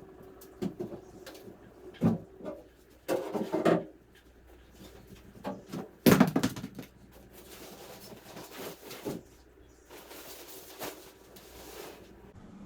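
Irregular knocks and clatter of loose items being picked up, shifted and set down, with one loud bang about six seconds in.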